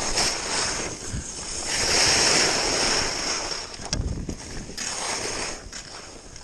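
Skis hissing and scraping over firm snow during a downhill run, swelling into a long loud scrape about two seconds in, with wind buffeting the microphone.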